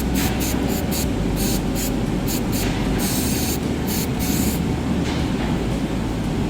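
Aerosol electrical contact cleaner (Electro Clean) sprayed in many short bursts onto a dirty brake switch, with two longer hisses a little past the middle, stopping about four and a half seconds in. A steady low rumble runs underneath.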